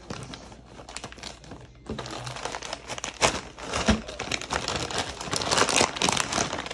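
Clear plastic bag of power-supply cables crinkling and rustling as it is handled, louder and busier from about two seconds in.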